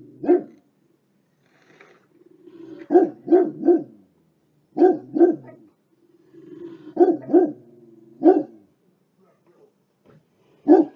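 Dog barking in short clusters of two or three barks, about ten in all, with a low steady growl between some of the clusters.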